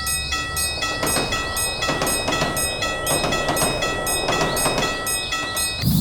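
Electric train passing through a level crossing, its wheels clattering over the rail joints in uneven knocks a few times a second. A repeating pattern of high ringing tones, stopping and restarting about twice a second, runs over it.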